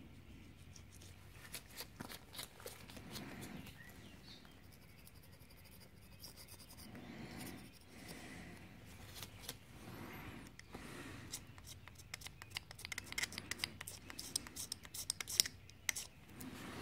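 Hand tool scraping old gasket material off the aluminium crankcase face of a two-stroke motorcycle engine: faint, irregular scratching and clicking, with quicker, sharper scrapes in the last few seconds.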